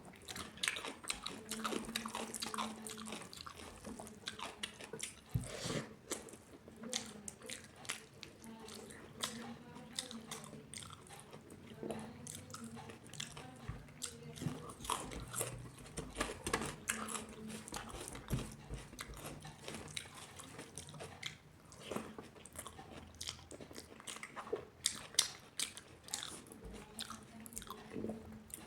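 Close-up mukbang eating sounds: a person chewing and biting food, with repeated crisp crunches and wet mouth clicks.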